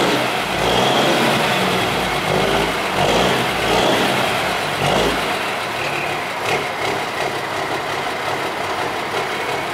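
Diamond Reo truck's diesel engine running and being revved, louder through the first five seconds or so, then settling to a lower, steadier run.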